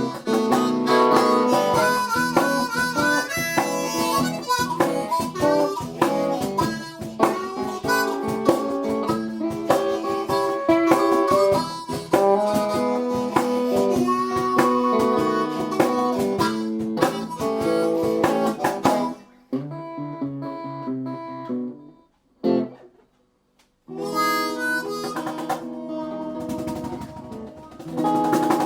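Blues harmonica playing an instrumental break over acoustic guitar. The playing thins out about two-thirds of the way through, stops for a moment, then starts up again.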